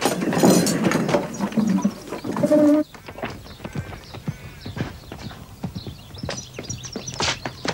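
A loud, noisy clatter and commotion for about three seconds, then a horse's hooves clopping in quick, uneven knocks on hard ground.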